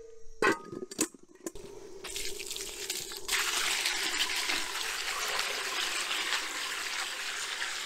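Two knocks as a plastic colander of beans is set down on a metal bowl, the first the loudest. Then water from a hose runs steadily onto the beans, splashing and draining through into the bowl below.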